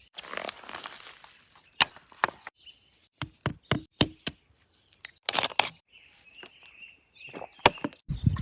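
A series of irregular sharp knocks and cracks, with rustling in the first two seconds or so.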